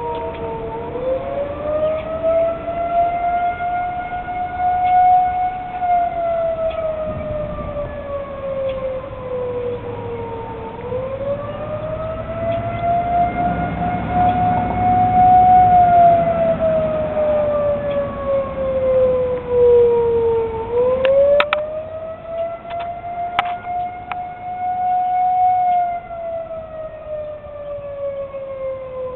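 Outdoor tornado warning sirens sounding a wail: the pitch rises quickly, holds briefly, then slowly falls, about every ten seconds, three times over. A low rumble swells under the siren in the middle.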